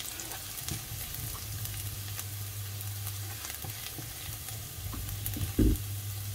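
Minced garlic sizzling in oil in a nonstick pan, stirred with a wooden spatula that scrapes and taps on the pan, over a steady low hum. One dull thump comes a little after five seconds in.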